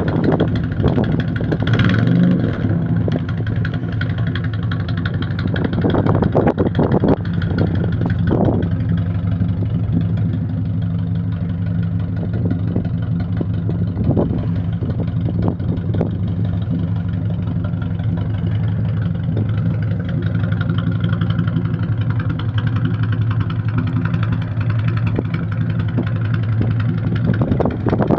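A VAZ 2106's inline-four petrol engine running steadily, with a few short knocks or clatters in the first several seconds.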